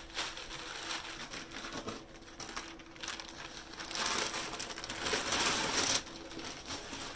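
Masking tape and masking paper being peeled off a freshly lacquered plastic car bumper, the paper crinkling and rustling. It is loudest for about two seconds in the second half and stops suddenly about a second before the end.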